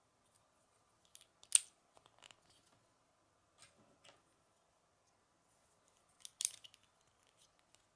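Plastic Lego pieces clicking as they are snapped and pressed together by hand: one sharp click about a second and a half in, a few lighter clicks after it, and another cluster of clicks about six seconds in.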